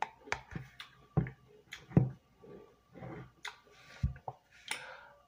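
Eating sounds: a metal spoon clicking and scraping in a plastic tub of cottage cheese and fruit, mixed with chewing mouth noises, in a string of about a dozen sharp clicks.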